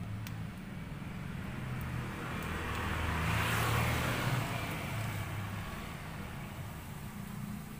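Road traffic under a steady low hum: a passing vehicle's noise swells to a peak about halfway through, then fades.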